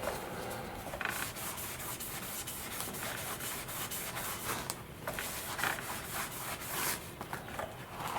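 Polishing strokes rubbing compound into a plastic model-glider fuselage, a scratchy rub repeating about three times a second, starting about a second in with a short break near the middle.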